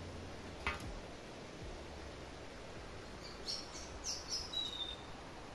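Steady rush of a river close by, with birds chirping in a few short, high calls and one brief whistle about three and a half to five seconds in. A faint rustle or click just under a second in.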